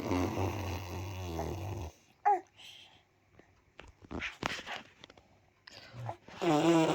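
A person making a long, rasping vocal noise with a wavering pitch, lasting about two seconds, then again near the end, with a brief vocal sound and small scattered sounds in between.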